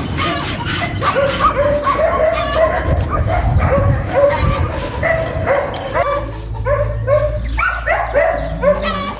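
A dog barking in a fast, unbroken run of short yelping barks, about two or three a second: territorial barking at a large strange dog that has come up to the garden wall.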